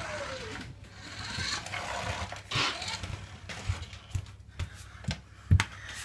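Toy Audi R8 remote-control car's small electric motor whirring and falling in pitch at the start, then scrapes and a series of knocks and thumps on the wooden floor, the loudest a little before the end.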